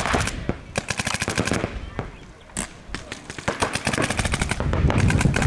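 Paintball markers firing fast strings of shots, about a dozen a second, in bursts that come again and again.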